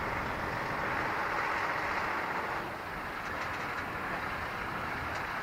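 Bell 204B helicopter's turboshaft engine and main rotor winding down after shutdown: a steady rushing hiss that eases a little about two and a half seconds in.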